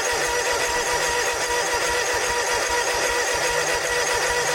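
Electric starter cranking the Snapper zero-turn mower's engine steadily with a loud whine, the engine not catching. The starter is loud and lagging, worn and due for replacement.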